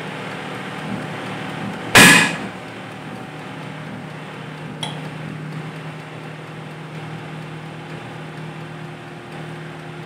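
Countertop electric oven running with a steady low hum. About two seconds in there is one loud, sharp crack that rings off briefly, and a small click follows near the five-second mark.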